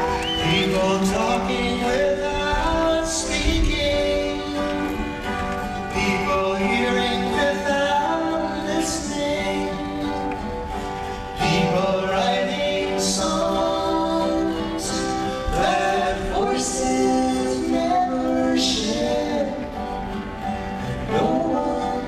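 Two male voices singing a slow folk song in close two-part harmony, over an acoustic guitar.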